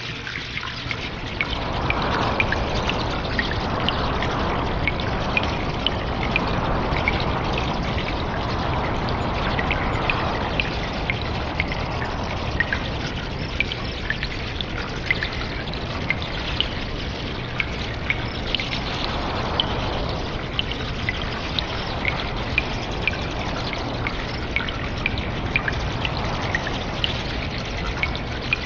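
Cave ambience: water dripping irregularly, several sharp drops a second, over a steady trickle of running water that swells at times.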